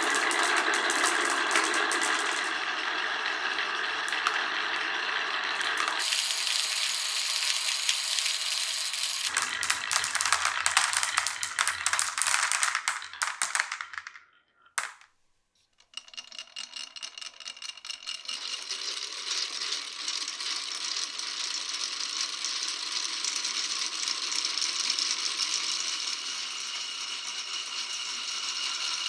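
Marbles rolling and clattering along the wooden and plastic tracks of a marble run. The sound changes abruptly a few times as the run moves to different sections, with a brief near-silent break about halfway, then steady rattling.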